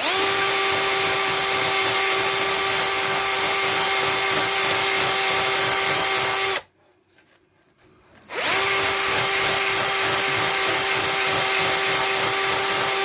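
Electric drill with a brush attachment running at a steady speed, scrubbing surface rust off a rusty bicycle sissy bar spring. It runs twice, each about six seconds, with a short stop in the middle.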